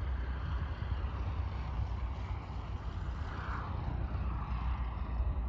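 Distant engine of a small single-engine propeller plane running on the airfield: a low, steady rumble.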